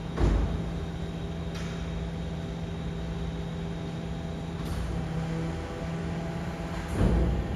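Steady electric hum with several held tones from a BYD electric refuse truck standing still, broken by two heavy thuds, one just after the start and one near the end.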